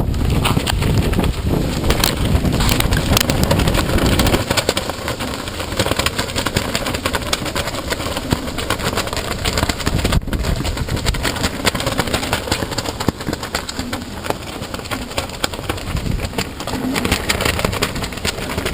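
Hurricane winds gusting hard across the microphone: a loud, heavy rumble mixed with constant crackling. It is strongest for the first few seconds, eases a little, then builds again near the end.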